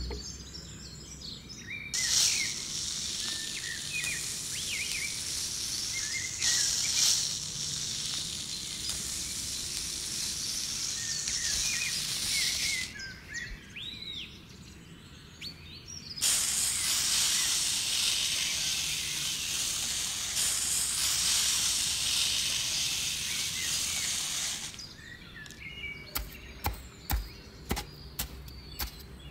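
Fine white sand poured from a cup into a miniature diorama, a steady hiss in two long pours, with birds chirping in the background. Near the end, a metal spoon scrapes and taps through the sand in a series of short clicks.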